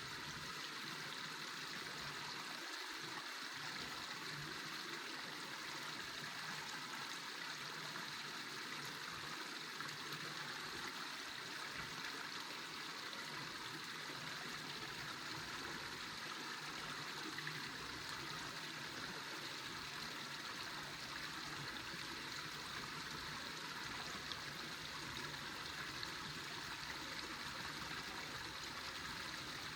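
A river flowing, a steady even rush of water.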